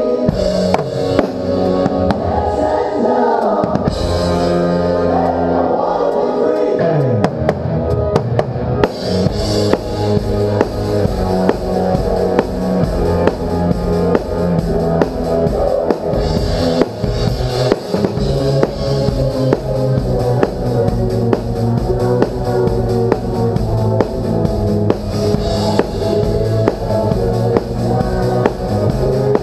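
Live rock band playing, heard through a GoPro's built-in microphone mounted at the drum kit, so the drums (bass drum, snare and cymbals) sit up front against the band. The music fills out about nine seconds in and keeps a steady beat.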